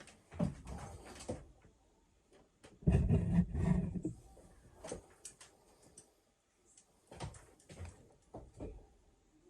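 Irregular bursts of scraping and knocking from washing-machine parts being handled during a teardown, the loudest a few seconds in, followed by a few short sharp clicks.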